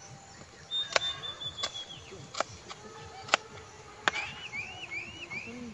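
Kitchen knife chopping red onion on a wooden board: five sharp, separate knocks of the blade hitting the board, spaced well under a second apart. A high, thin whistle is heard about a second in, and a run of four short rising chirps comes near the end.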